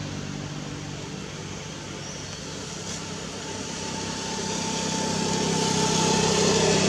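An engine running steadily, getting louder through the second half.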